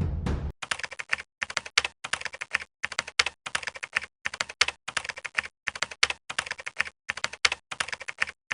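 Rapid keyboard typing: runs of sharp clicks in short groups with brief gaps between them. Music cuts off abruptly about half a second in.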